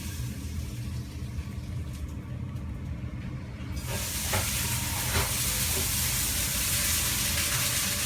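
A rabbit giving a few short, sharp sneezes about four to five seconds in, over a steady low rumble. A loud, even hiss starts about halfway through and carries on to the end.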